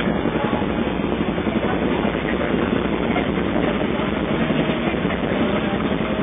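Single-cylinder motorcycle engine running steadily with a low, choppy rumble.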